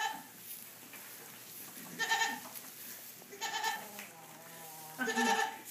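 Fainting goat kids bleating: four short, high bleats, about one every second and a half, with a lower call between the last two.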